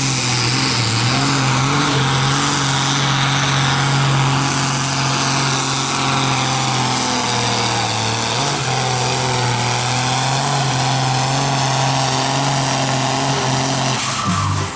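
Ford TW-25 tractor's diesel engine running hard under full load as it pulls a weighted sled. It gives a loud, steady drone that dips briefly about a second in and again a little past halfway.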